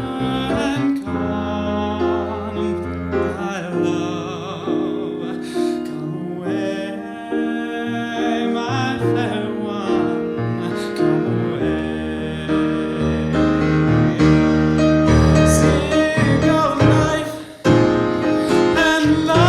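A male solo voice singing long held notes with vibrato, over piano accompaniment.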